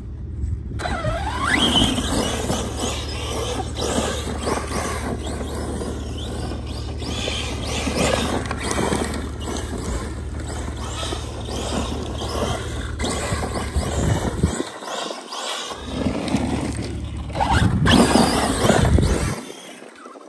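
ARRMA Big Rock 6S RC monster truck's brushless electric motor whining, revving up and down in rising and falling glides, with its tyres spinning and scrabbling on loose dirt as it drifts; loudest about eighteen seconds in.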